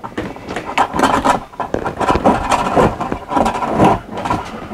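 A BAL Accu-Slide steel slide-room cable being pulled through its pulleys and guided by hand, making irregular scraping and rubbing noises.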